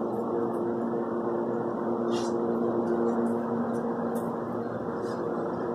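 A steady mechanical hum with several constant tones over a low, even noise, like a motor or appliance running, with a couple of faint clicks about two and four seconds in.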